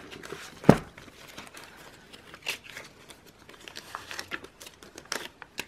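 Paper banknotes and plastic binder envelopes rustling and crinkling as they are flipped and handled, in short irregular bursts, with one sharp knock about a second in.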